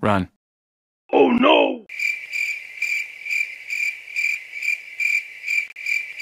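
Crickets chirping as an added sound effect: a steady high chirp repeating about two and a half times a second, starting about two seconds in. Before it, music cuts off abruptly, then a short sliding, voice-like sound comes just after one second.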